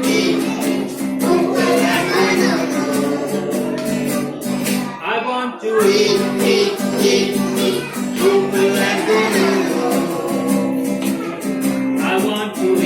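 A song: a voice singing over plucked guitar and a steady beat of high percussion ticks, breaking off briefly about five seconds in.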